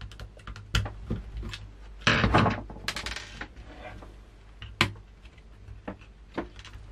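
Scattered small clicks, taps and scrapes as a bathroom scale's circuit board is handled and worked off its plastic carrier. A quick run of rattling clicks comes about two seconds in, and a single sharp click comes near five seconds.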